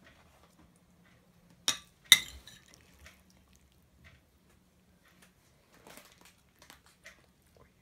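Two sharp clinks of tableware about half a second apart, then a few faint taps and scrapes of a metal spoon in a glass bowl as grated egg white is scooped out.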